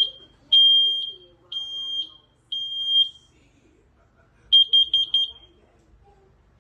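Combination smoke and carbon monoxide alarm beeping: three long, piercing beeps about once a second, then after a pause a quick burst of about five short beeps.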